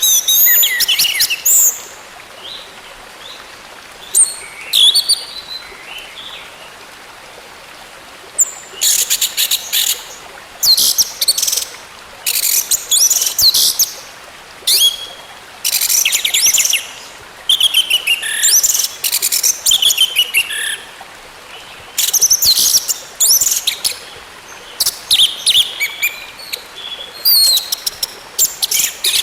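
Orange-headed thrush (anis merah) singing: repeated phrases of rapid, high, twittering and sweeping notes, each a second or two long, separated by short pauses.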